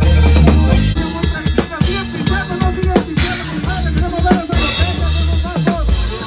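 Live corridos band music: a drum kit plays a steady beat of kick, snare and cymbal hits over a loud, deep bass line.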